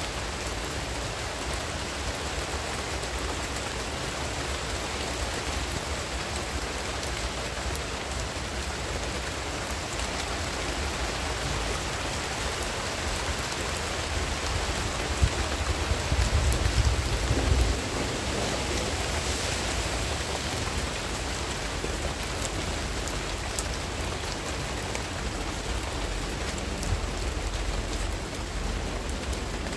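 Steady rain falling on palm fronds and garden foliage, an even hiss with the patter of drops. Just past the middle a low rumble swells briefly and fades.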